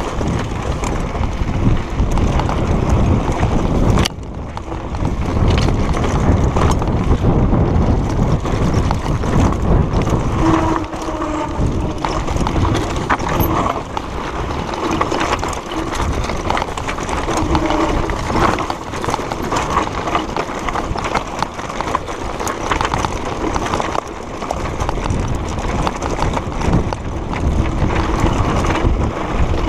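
Mountain bike clattering and rattling continuously down a rocky dirt trail, with rumbling tyre noise, picked up through a handlebar-mounted camera.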